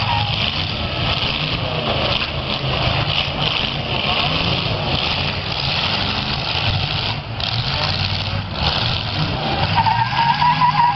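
Demolition derby cars' engines running and revving while their tyres spin and skid on pavement. A wavering high squeal comes in near the end.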